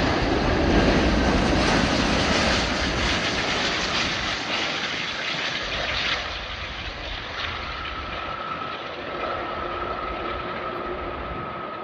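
Jet airliner's engine noise, a loud rushing that fades steadily as the aircraft moves away. A thin steady whine comes in about seven seconds in.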